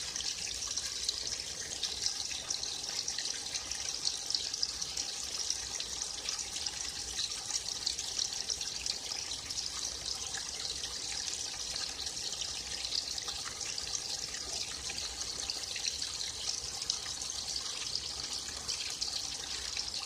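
Small forest stream flowing steadily, water trickling and babbling over rocks.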